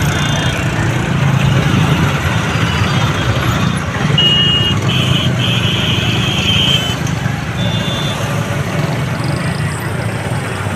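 Dense motorcycle and scooter traffic crawling over a railway level crossing, engines running in a steady low rumble, with vehicle horns honking several times, the longest run of honks about four to seven seconds in.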